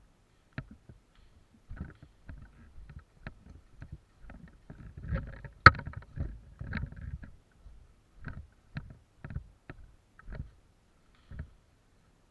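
Footsteps and rustling gear of a moving airsoft player, uneven thumps that settle into a walking rhythm of about two a second in the second half. One sharp crack about five and a half seconds in is the loudest sound.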